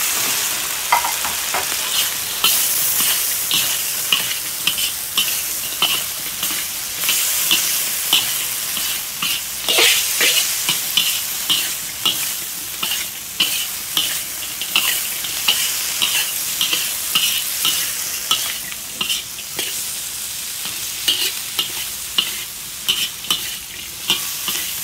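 Stir-frying in a steel wok: a steady sizzle from the oil and sauce under repeated scrapes and taps of a metal spatula against the wok, a little more than once a second, as fried chicken pieces are tossed with peppers and onion.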